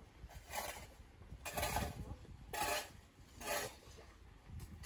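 Shovel scraping into a pile of loose earth, four rasping strokes about a second apart.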